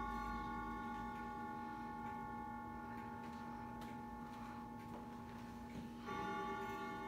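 Grandfather clock striking the hour. One deep chime note rings on and slowly fades, and the same note is struck again about six seconds in.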